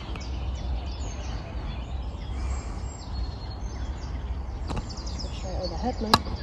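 Outdoor lakeside ambience: a steady low rumble with scattered bird chirps. Near the end a faint voice and two sharp clicks, the second the loudest.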